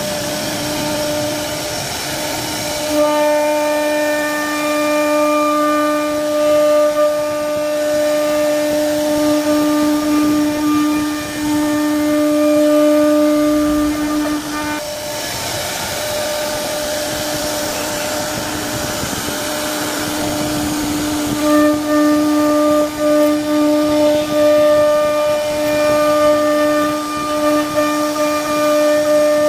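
CNC router spindle running at a steady high whine while carving wood. In the middle the whine drops back and a rougher, noisier cutting sound takes over for several seconds, then the whine returns.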